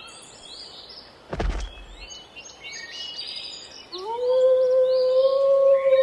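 Birds chirping in a forest background, with a brief low thump about a second and a half in. About four seconds in a wolf howl begins: one long, loud call that rises at its start and then holds steady.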